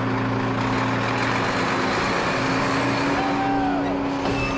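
A fire truck's engine running at a steady drone under a constant rushing noise, with a brief high whistle near the end.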